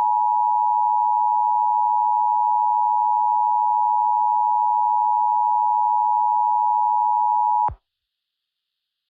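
Emergency Alert System attention signal: a steady two-tone electronic alarm held for about eight seconds, then cut off abruptly. It marks the start of a new emergency alert message.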